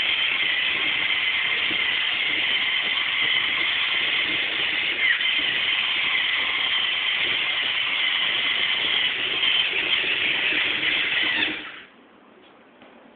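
LEGO Mindstorms NXT servo motors driving a small tracked robot, a steady high whine of the geared motors that stops suddenly near the end.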